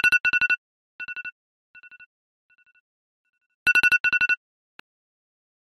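Mobile phone alarm beeping: quick runs of high beeps on one pitch, each loud run followed by fainter runs that fade away, with a loud run again about four seconds in and a short click just after it.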